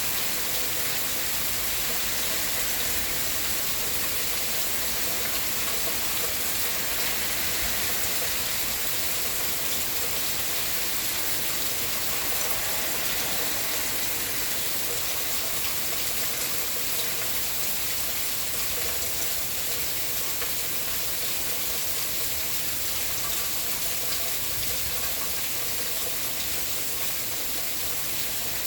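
Steady rainfall, a dense, even hiss of falling rain that holds at one level without pause.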